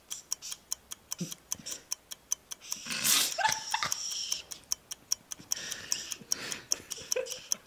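Clock ticking steadily about four times a second, a timer counting down the ten seconds; laughter about three seconds in.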